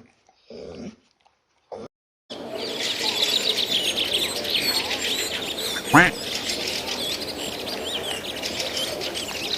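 A few short, scattered animal sounds, then about two seconds in a dense chorus of many birds chirping starts abruptly. About six seconds in, one loud call falls steeply in pitch.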